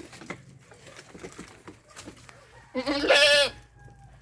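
A goat bleats once, loud and wavering, about three seconds in, after a stretch of faint small rustles and clicks.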